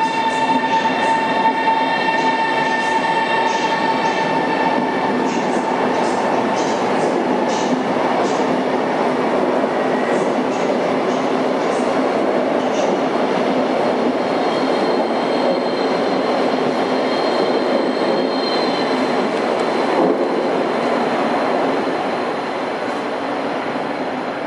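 Electric passenger train running along the platform of an underground station: a steady rumble of wheels on rail with small ticks, a whine that fades out in the first few seconds, and a thin high squeal midway. The sound drops off near the end.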